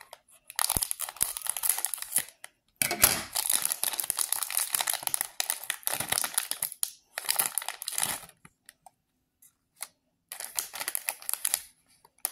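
Plastic snack bag crinkling and rustling as it is opened and handled, in several bursts of crackle with short pauses between.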